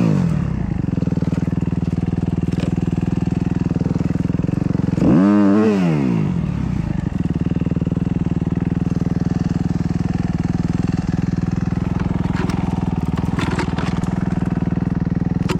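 Snow bike's dirt-bike engine idling steadily, with one blip of the throttle about five seconds in that rises and falls back to idle.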